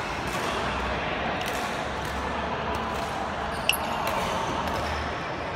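Steady room noise of a large sports hall with a low hum, broken by one sharp click about three and a half seconds in.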